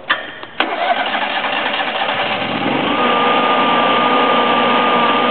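Kohler 12RES standby generator starting: two sharp clicks, then the engine cranks and catches, rising in speed and settling at about three seconds into steady running with a steady whine.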